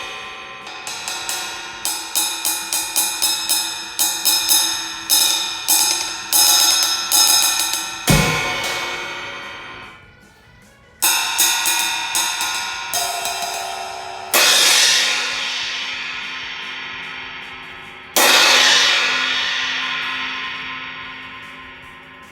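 Drum-kit crash cymbals, a new 18-inch Sabian B8X ballistic crash and an older 16-inch crash, struck with sticks. A quick run of strikes for about eight seconds ends on a hit with a bass-drum thump; then single crashes follow, the last two left to ring out and fade for several seconds each.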